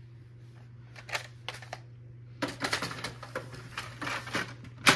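Plastic clicks and rattles of a Canon Pixma TS5320 inkjet printer's paper tray being handled and slid back into the printer, with a few scattered clicks, then a cluster of rattling, and a single sharp loud click near the end.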